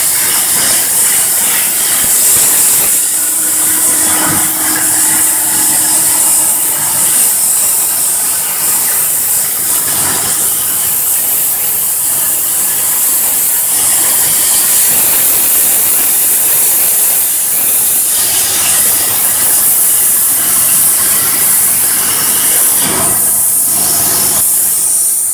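Plasma arc of a CNC plasma cutting table's torch cutting through metal plate: a loud, steady hiss.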